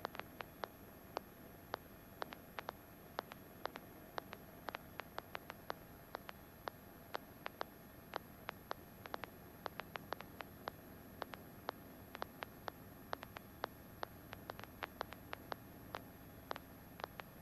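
Faint, irregular sharp clicks, about two or three a second, over a low steady hiss.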